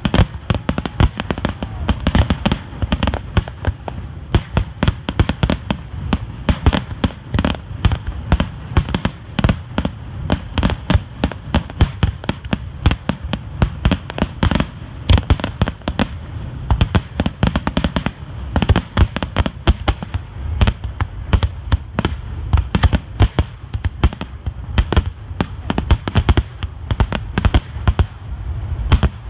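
Starmine fireworks barrage: aerial shells bursting in rapid, overlapping bangs, several a second, with no let-up.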